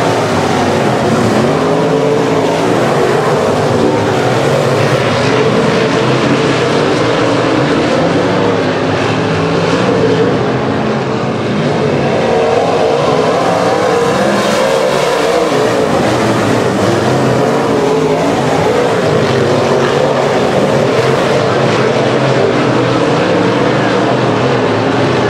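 Several dirt modified race cars' V8 engines running together as the cars circle a dirt oval, their pitch rising and falling as they go around the turns.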